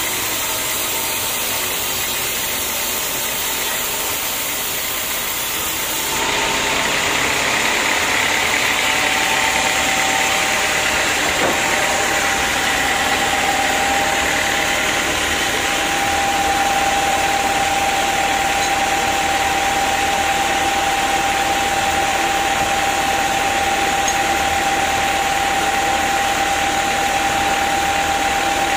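Log band sawmill running, its blade sawing through a teak log: a loud, steady mechanical noise. The sound changes abruptly about six seconds in, and a steady whine holds from about twelve seconds in.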